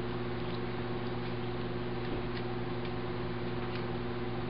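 A cat chewing on blades of fresh grass held out to her, a few faint irregular clicks, over a steady low hum.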